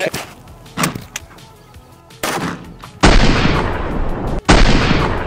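Rifle gunfire: a few sharp shots in quick succession over the first couple of seconds. Then, about three seconds in, a much louder drawn-out boom fades over about a second and a half, and a second one starts as the first dies away.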